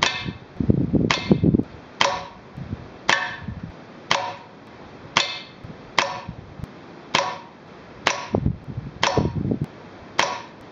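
A .177 BSA Mercury spring-piston air rifle firing pellets into a steel pellet trap: a sharp crack about once a second, about eleven in all, each with a short ringing tail. Low rumbling handling noise comes in twice, about a second in and near the end.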